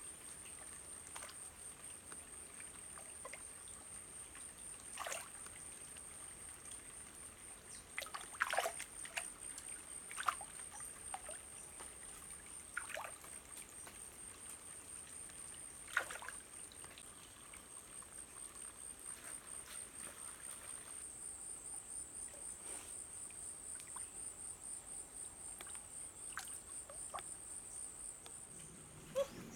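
Small water splashes and trickles, the sharpest about eight and sixteen seconds in, over a steady high-pitched insect trill that pulses quickly and grows stronger near the end.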